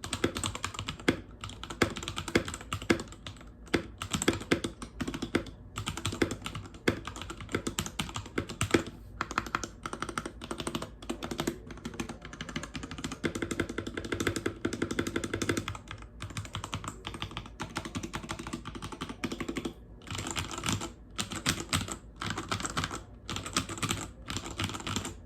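Typing demonstration on an HW-K681 wireless mechanical keyboard with red switches: dense, rapid keystrokes. The typing is continuous at first, then comes in quick bursts with short pauses in the second half.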